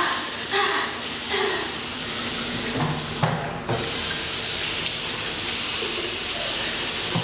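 Water running from a single-lever mixer tap into a ceramic bathroom basin, with hands in the stream. It cuts out briefly about three and a half seconds in, then runs again.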